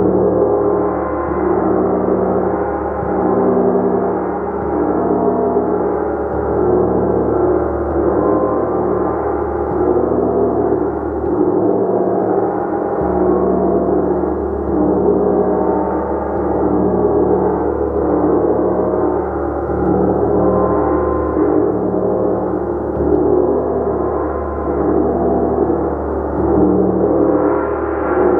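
A gong played continuously, its many overlapping tones sustained in a dense shimmering wash that swells and ebbs gently every second or two.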